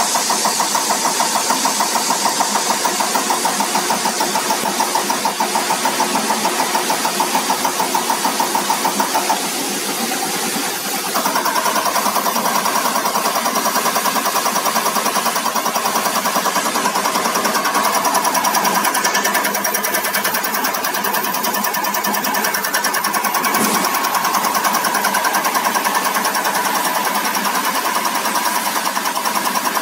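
Diesel unit injector test bench running: its cambox drive turns the electronic unit injector with a steady, rapid pulsing beat of injection strokes. After a short lull about ten seconds in, it picks up again as the test program steps the cam drive from 400 to 600 rpm.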